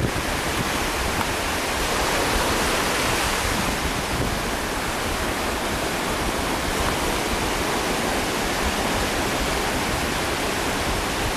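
Steady rush of ocean surf mixed with strong wind buffeting the microphone.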